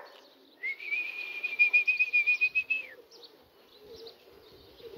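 A trilling whistle held on one note for about two seconds, starting about half a second in and falling away at the end.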